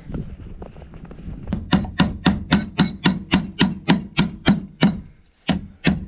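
A rapid, even run of about fourteen sharp knocks, roughly four a second, starting about one and a half seconds in. It breaks off near the end, and two more knocks follow after a short gap.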